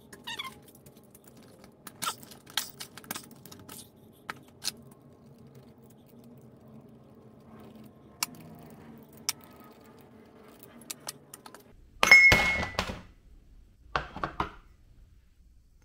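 A ratchet wrench backs out the bolts on a Boston gearbox's aluminium housing, giving scattered clicks and small metal clinks as bolts are set down in a metal pan. About twelve seconds in comes a loud burst of knocks and clatter with a brief ringing, then a few more knocks a second or two later, as a rubber mallet taps the housing cover loose.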